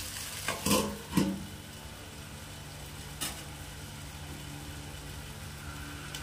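Steel lid clanking down onto a steel kadai twice in quick succession about a second in, with a lighter clink a couple of seconds later, over a steady low hum.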